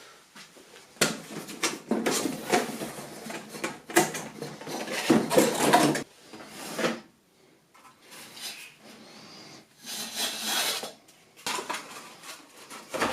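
Hard computer parts and their packaging being handled: clattering clicks, knocks and scrapes in irregular bursts with short pauses, busiest in the first half.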